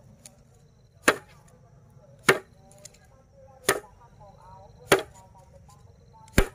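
A bundle of dried grass stalks beaten down hard on a flat board, five sharp whacks about every second and a quarter, threshing the heads of the stalks.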